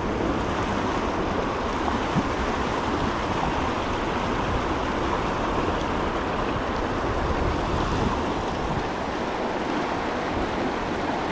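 Shallow mountain river rushing over rocks and through riffles: a steady water noise.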